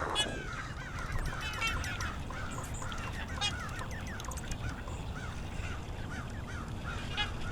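A flock of waterfowl calling: many short honking calls overlapping one another, over a steady low rumble.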